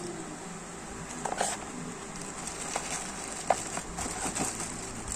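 Handling noise from an action camera and its packaging: scattered light clicks, taps and a brief crackle, the sharpest click about three and a half seconds in, over a steady background hum.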